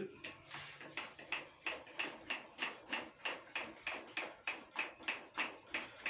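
Small hand-held emergency bicycle pump being worked at a tire valve in quick, even strokes, about four a second, inflating a mountain bike's front tire.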